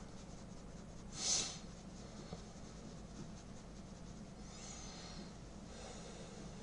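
A person's single short, noisy breath about a second in, over faint steady background hum.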